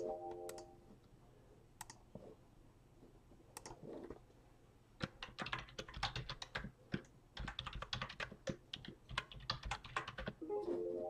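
Typing on a computer keyboard: a few separate key clicks, then a fast, dense run of clicks from about five seconds in until shortly before the end. A brief tone with overtones sounds at the very start and again at the end.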